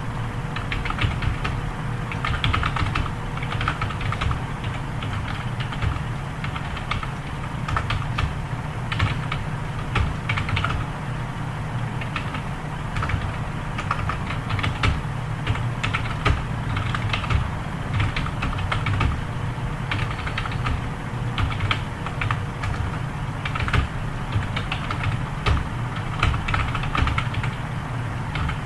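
Continuous typing on a computer keyboard during a timed typing test: a steady stream of irregular key clicks over a low, steady hum.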